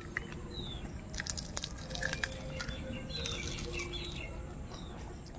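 Small birds chirping a few times, short high falling notes, over a steady low background noise, with scattered short crisp clicks.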